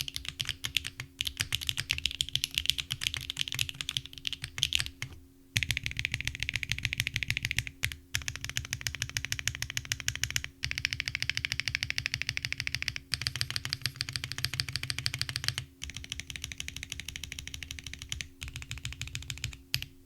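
Fast typing on a mechanical keyboard fitted with Akko Cilantro long-pole tactile switches (factory-lubed, polycarbonate top housing, nylon bottom, POM stem), the keystrokes giving a deep, clear clack. The typing comes in runs of a couple of seconds broken by short pauses, over a faint steady hum.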